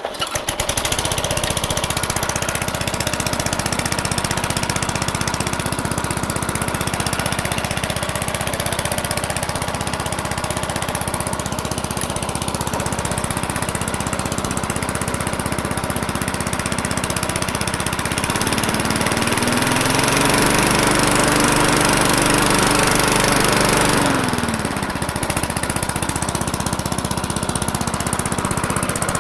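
An old Craftsman lawn mower's small engine catches at the start and runs steadily, now that its loose blade has been tightened. About two-thirds of the way in it is throttled up to a higher, held speed for several seconds, then drops back to its earlier speed.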